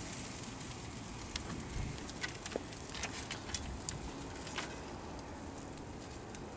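Faint crackle and hiss of whole fish cooking on a gas grill, with a run of scattered sharp clicks and taps in the middle as a metal spatula lifts one fish off the grate onto a wire rack.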